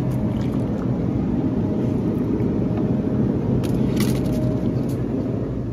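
Steady low rumble of a store's refrigerated display case running, with a couple of light knocks from plastic juice jugs being taken off the shelf about four seconds in.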